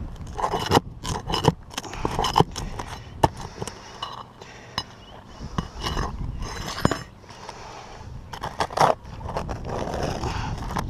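Flat pry bar scraping under asphalt roof shingles and pulling roofing nails, with irregular metallic clinks and sharp knocks.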